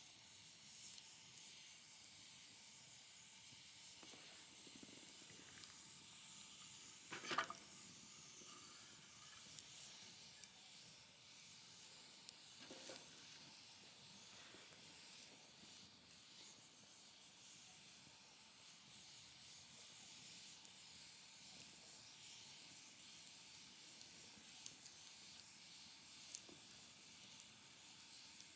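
Firewood burning in a campfire, hissing faintly with scattered small crackles. One sharp pop about seven seconds in.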